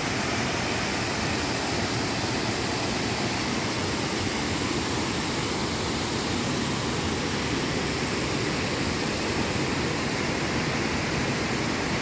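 Steady rush of a waterfall and its rocky outflow stream.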